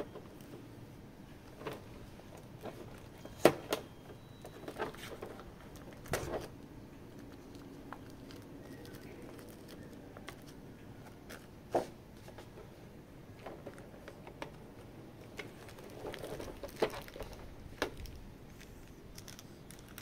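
Hands unpacking a boxed collectible figure: scattered clicks and taps of plastic and packaging being handled, with some crinkling. The loudest tap comes about three and a half seconds in, and there is a short cluster of crinkles and clicks near the end.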